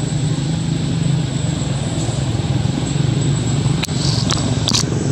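Steady low mechanical hum, with a few sharp clicks about four seconds in.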